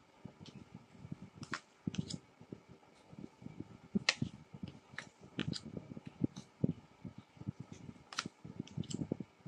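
Tarot cards being handled and dealt onto a wooden table: a string of soft taps and rustles at irregular intervals, with a few sharp card snaps.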